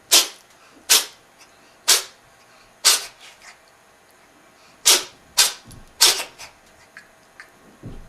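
A cat sneezing repeatedly: four sharp sneezes about a second apart, a pause, then three more in quicker succession.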